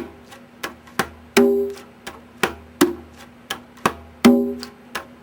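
Conga drum played by hand in a steady pattern of soft heel and finger strokes, with a louder ringing stroke twice, about a second and a half in and again near the end.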